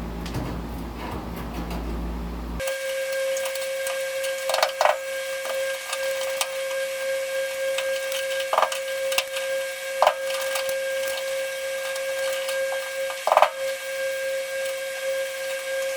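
Electric drill running at a steady whine while drilling out spot welds in a truck's sheet-metal cab corner, with a few short squeals and sharp clicks as the bit bites into the metal.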